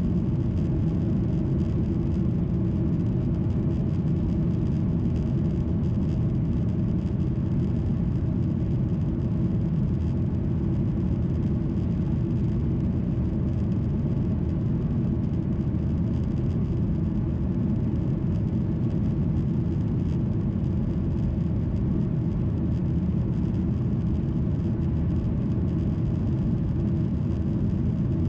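Steady low rumble inside the cabin of a Boeing 737-800, with the drone of its CFM56-7B jet engines and the rush of air past the fuselage, even and unchanging throughout.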